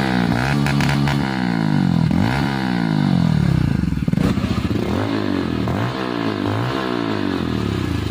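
Bajaj Pulsar N160's single-cylinder engine breathing through an aftermarket exhaust, revved several times, its pitch rising with each throttle blip and falling back.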